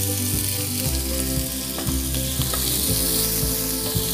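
Chopped onions sizzling in hot olive oil in a non-stick frying pan, stirred with a wooden spatula that gives a few light taps and scrapes against the pan, over a steady low hum.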